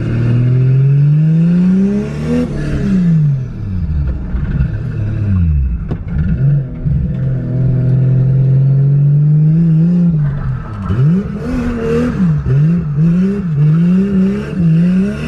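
Toyota Supra's turbocharged 2JZ straight-six, heard from inside the cabin while driving, running on just a downpipe with no rest of the exhaust and held off boost. The revs climb for about two seconds, fall away, hold steady, then rise and fall several times near the end.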